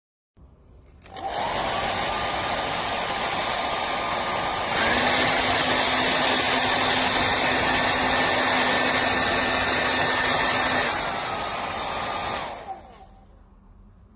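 A hand-held hair dryer is switched on and runs with a steady rush of air and a fan whine. About five seconds in it steps up to a louder, higher-pitched speed setting. Near eleven seconds it drops back to the lower setting, then is switched off and winds down with a falling whine.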